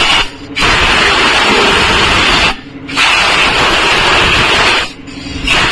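Hissing from a high-pressure spray gun working on the tractor, in long blasts with three short breaks where the trigger is released.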